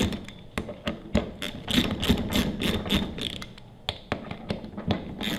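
Socket ratchet worked back and forth to run down the bolts on a pressure washer pump head. Its pawl clicks in quick runs with short pauses, a sound a bit like a duck.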